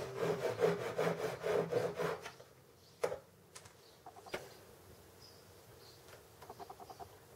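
Japanese backed saw cutting a dovetail into a board of softwood held in a vise, in quick rasping strokes about three a second, stopping about two seconds in. Two sharp knocks follow as the tool and board are handled, then faint light taps.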